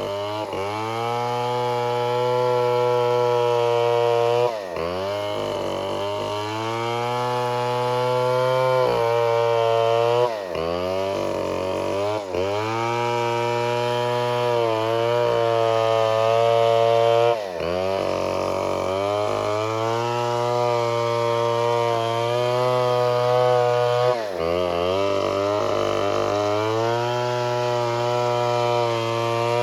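Chainsaw running at high revs. Its pitch drops sharply and climbs back about six times, every few seconds.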